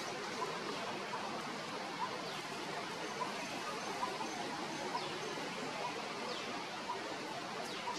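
Steady outdoor background hiss with a faint short chirp repeating about every 0.8 s and a few brief high whistles that fall in pitch.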